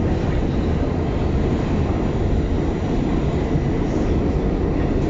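New York City subway train running through the tunnel, heard from inside the car: a steady low rumble of the wheels and car in motion.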